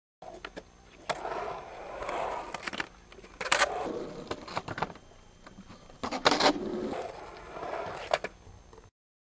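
Skateboard wheels rolling through a concrete bowl, swelling and fading with each carve, with sharp clacks of the board and trucks on the coping. Two loud short grinds on the coping, about three seconds apart, from frontside hurricane tricks. The sound cuts off abruptly near the end.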